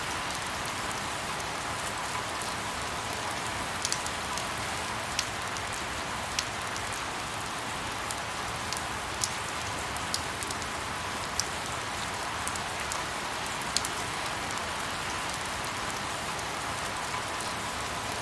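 Steady rain falling, an even hiss with scattered louder single drops ticking every second or two.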